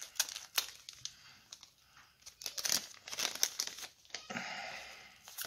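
Foil trading-card booster pack crinkling as it is handled and opened, in short irregular crackles.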